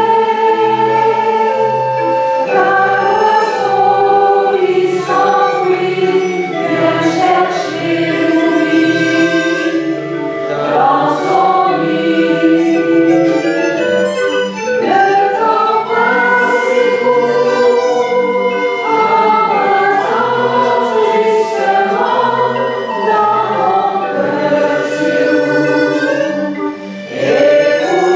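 Barrel organ and accordion playing a slow song with singing voices over them, a repeating low bass pulse beneath; the sound dips briefly just before the end.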